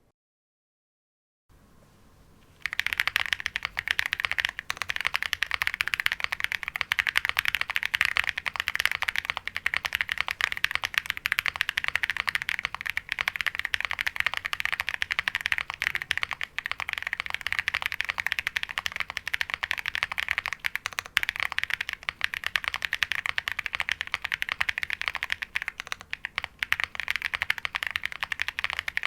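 Fast, continuous typing on a Qwertykey QK65 mechanical keyboard with Holy Panda tactile switches lubed with Krytox 205g0, an aluminium plate and PBT keycaps, giving a thocky sound. The typing starts about two and a half seconds in, after a short silence.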